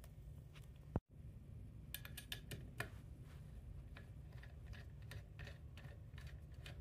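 Faint metal clicks and ticks from hand-threading an aluminium tube clamped in a vise with a tap and a hex-bit driver, over a low steady hum. A sharp click comes about a second in, and a cluster of small clicks around two to three seconds in.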